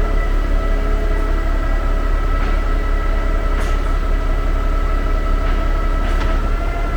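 Concrete pump truck running steadily as it pumps concrete: a constant low engine rumble with a steady high whine over it and a few faint knocks.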